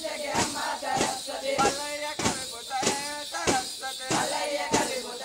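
Tappeta gullu folk-dance drums struck in a steady beat, about one and a half strokes a second, with voices singing over them.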